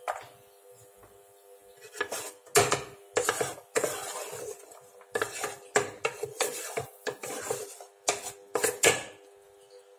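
Wooden spatula scraping and knocking against a non-stick frying pan as it stirs chopped garlic. The strokes are irregular and start about two seconds in.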